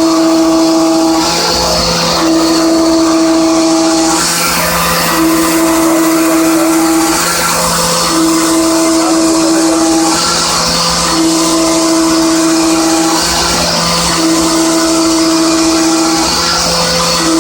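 Hermle C20U CNC machining centre trochoidal milling with a 16 mm solid end mill: the spindle runs steadily while a clear pitched tone sounds for about two seconds and drops out for about a second, over and over, as the cutter engages on each looping pass through the material.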